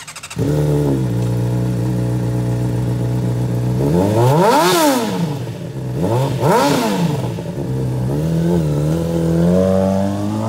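A 2011 Honda CBR600RR's inline-four engine, breathing through an aftermarket Toce dual exhaust, is started with a brief crank and catches within half a second, then idles. It is revved twice to a high pitch and back down, blipped once more, and climbs again under throttle near the end as the bike pulls away.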